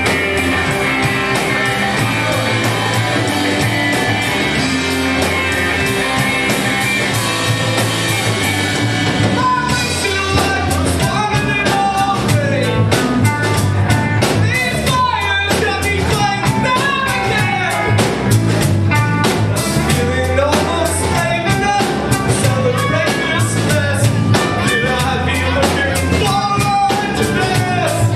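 Rock band playing live: electric guitars, a steady bass line and a drum kit. The first ten seconds or so are held instrumental chords; after that a voice sings over the band.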